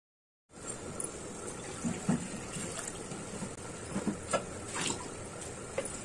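Milk being poured into a nonstick kadai: a steady liquid pour, with a few faint ticks.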